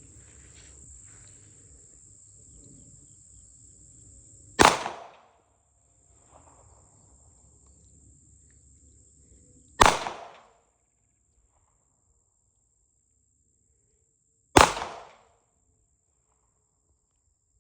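Three gunshots from a small gun, about five seconds apart, each a sharp crack that dies away quickly, over a steady high-pitched hum.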